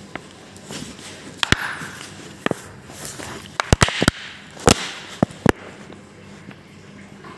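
A series of irregular sharp knocks and clicks, several in quick succession around the middle.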